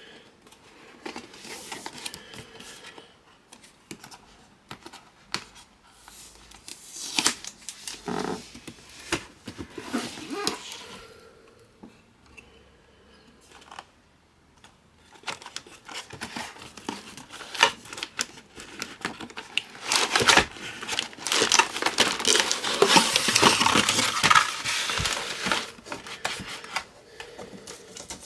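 Computer-part packaging being handled and opened: plastic crinkling and tearing, with scattered clicks and knocks of cardboard boxes and parts. The handling comes in bursts and is busiest and loudest towards the end.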